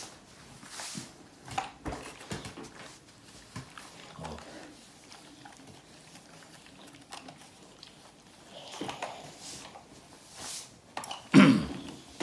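Hand ironing of clothes: scattered knocks and rustles of a clothes iron and fabric on an ironing board, with a couple of short hisses and one louder thump near the end.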